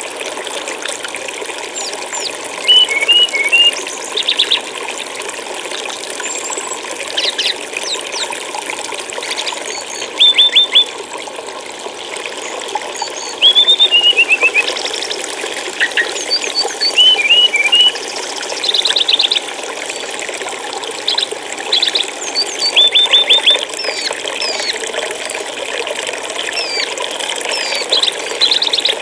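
Steadily flowing stream water with small birds chirping over it in short, quick phrases of three to five notes, repeating every second or two.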